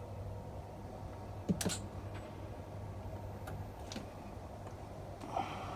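Several sharp clicks from switches and relays in the car's cabin with the ignition on, the loudest about one and a half seconds in, over a steady low electrical hum.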